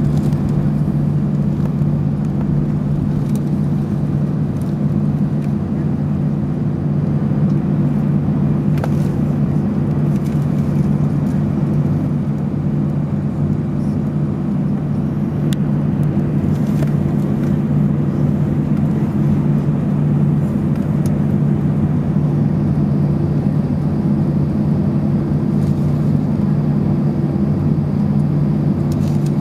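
Steady low drone of an Airbus A319's engines and cabin air heard from inside the cabin while the airliner taxis, holding an even level throughout, with a couple of faint clicks.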